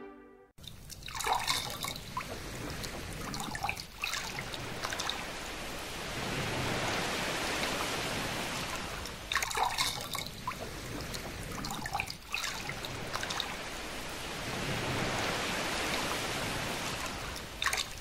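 Running water trickling and dripping in a gentle flow that swells and eases off twice. A few sharper splashes come about a second in, near the middle and near the end.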